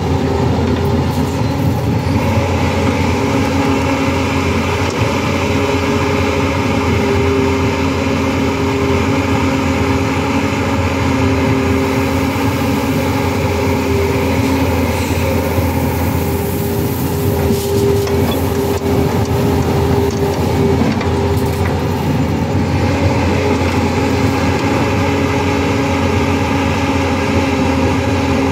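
Tata Hitachi crawler excavator's diesel engine running steadily under working load. A whine rises and fades repeatedly as the boom swings and the bucket digs.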